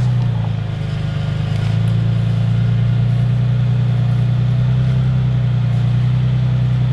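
An off-road truck's engine running steadily, dipping briefly about a second in and then picking back up.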